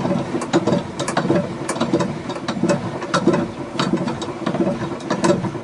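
Hand crank of a homemade wooden table saw's tilt mechanism being turned, the wooden gears and carriage clicking and knocking a few times a second over a low steady rumble as the carriage moves.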